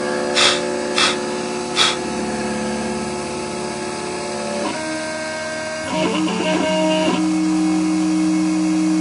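Stepper motors of a mini CNC router whining as they drive the axes. The whine holds steady pitches that jump and glide to new ones each time the motion changes. There are three sharp clicks in the first couple of seconds.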